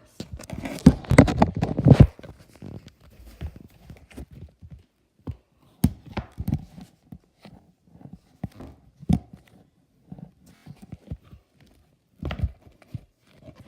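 Homemade slime, a fairly stiff batch, being squeezed and worked in the hands for ASMR. It gives a quick run of wet clicks and pops for about two seconds, then scattered single clicks and pops.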